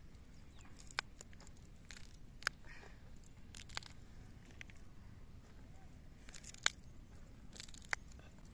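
Stems being snapped off fresh green chillies by hand and the chillies dropped onto a steel plate: a handful of faint, sharp clicks and small snaps, spaced a second or more apart.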